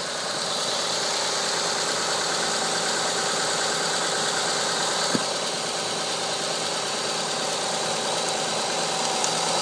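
Honda Odyssey engine running steadily at idle just after a timing belt replacement, heard close to the timing-belt end with the alternator, power-steering pump and AC compressor not hooked up. One brief click about halfway through.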